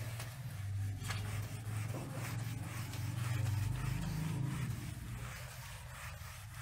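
Felt whiteboard eraser wiping across a whiteboard: a run of irregular scratchy rubbing strokes over a steady low hum.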